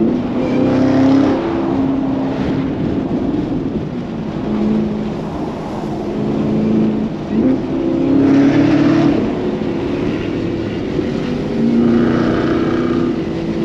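Chevrolet Camaro ZL1 1LE's supercharged V8 pulling through the gears, its note swelling and easing several times, with a quick drop and climb in pitch about seven seconds in. A steady rush of road and wind noise runs under the engine.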